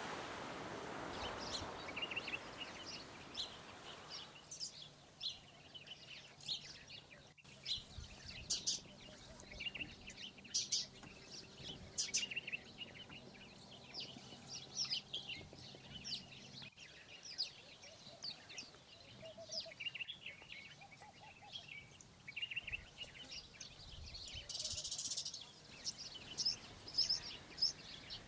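Small birds chirping and calling, many short high-pitched calls in quick succession. A broad hiss fills the first few seconds.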